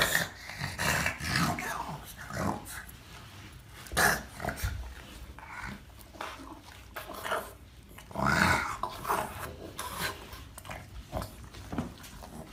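Dog growling and grumbling in short, irregular bouts, loudest about four seconds in and again around eight seconds in.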